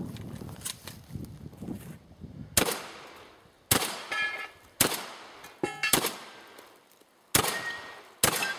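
Six shotgun shots fired in quick succession, roughly a second apart, starting a few seconds in. A ringing tone follows two of the shots.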